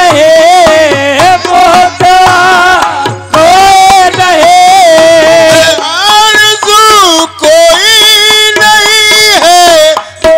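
Qawwali singing: a lead voice and chorus voices in long held, bending phrases, accompanied by a harmonium.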